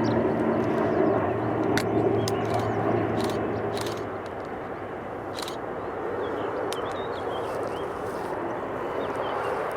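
Aircraft engine noise at an airfield: a steady low hum that fades away over the first few seconds, then builds again near the end. Faint bird chirps can be heard in the quieter middle.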